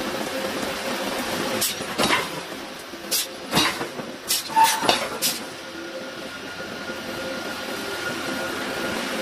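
Several sharp metallic clanks as steel tools are worked against hot steel in a heavy steel forging block, bunched about two to five seconds in, over a steady industrial hum.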